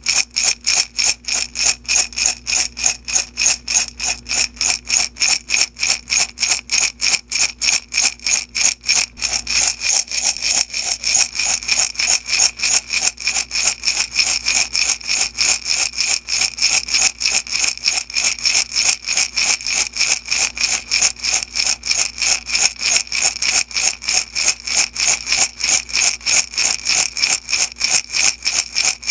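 Small beads shaken back and forth in a glass jar, rattling in a steady rhythm of about three shakes a second.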